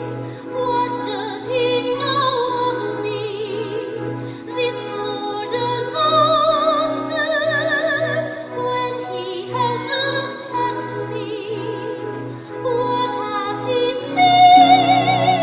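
A woman singing a slow musical-theatre ballad in a trained voice with wide vibrato, over orchestral accompaniment. Near the end she rises to a louder, long-held high note.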